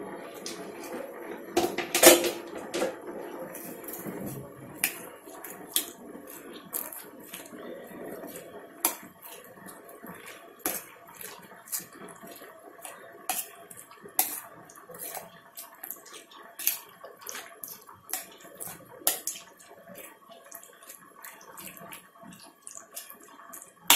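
A metal spoon stirring yogurt with sliced onion in a small steel bowl, clinking against the bowl about once a second, with the wet stirring sound between the clinks.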